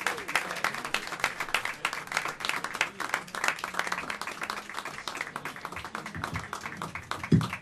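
Audience applauding, thinning out in the second half, with one low thump near the end.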